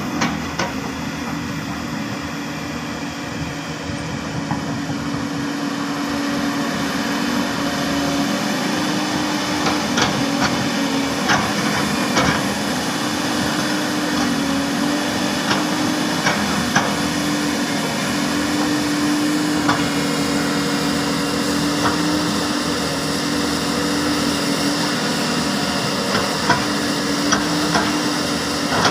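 Hyundai 330LC-9S excavator's diesel engine running steadily under work, with a constant hum and scattered sharp knocks and clanks over it while soil is being worked.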